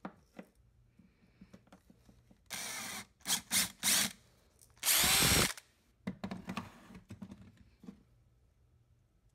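Cordless drill run in short pulls of the trigger: one brief run, three quick blips, then a longer, louder run whose pitch falls as the motor stops. A few light clicks and taps follow.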